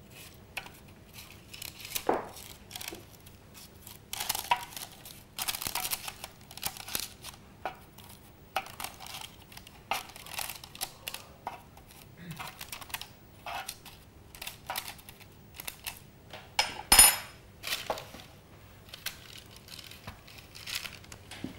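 Chickpea patties being turned by hand on a parchment-lined metal baking tray: baking paper rustling and crinkling, with light scrapes and taps. About three-quarters of the way through comes one sharp, ringing metallic clink.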